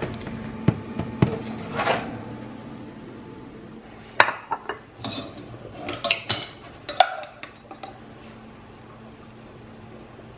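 Dishes and cutlery clinking and knocking as food is served onto a dinner plate: a few sharp clinks at first, then a busier run of clinks and knocks between about four and eight seconds in. A low steady hum runs underneath.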